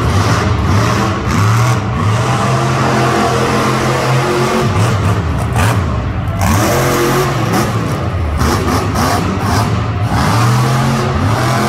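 Monster truck engine revving hard and repeatedly, its pitch rising and falling as the truck climbs the dirt mound, drives and spins.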